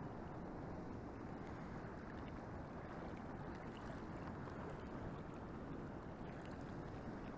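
Steady low rushing noise of wind and moving water, with a few faint ticks.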